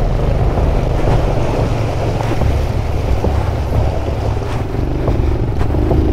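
Wind rumbling on a chest-mounted action camera's microphone, over water splashing as an Aveta RangerMax Explorer cub motorcycle rides through a shallow, muddy stream.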